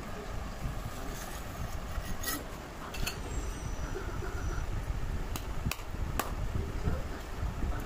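Scraping and several sharp clicks as a knife works a block of set soap loose from a small stainless steel bowl and the bowl is turned over and handled, over a low rumbling background.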